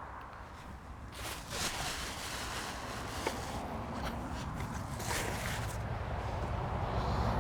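Plastic packaging and bubble wrap rustling and crinkling as parts are unwrapped by hand, with a few sharp clicks, over a low rumble that grows toward the end.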